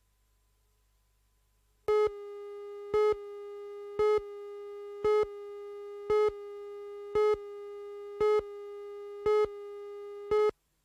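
Videotape countdown-leader tone: a steady buzzy electronic tone starts about two seconds in, with a louder beep on it once a second as the countdown numbers tick down, nine beeps in all. It stops suddenly near the end.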